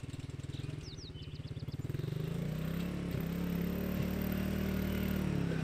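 ATV engine running, growing steadily louder as the quad drives closer.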